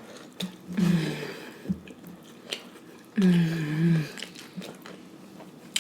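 Close-miked chewing and biting of a fried chicken sandwich, with wet lip smacks and mouth clicks. Twice the eater gives a short hummed "mmm", the second one longer and louder, about three seconds in.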